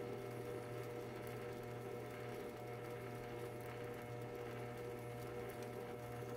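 Metal lathe running at slow spindle speed while a parting tool cuts through a turned part: a low, steady machine hum with several held tones.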